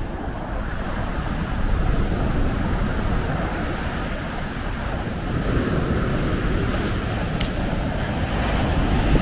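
Low waves breaking and washing up a sand-and-pebble beach in a steady rush of surf, with wind rumbling on the microphone.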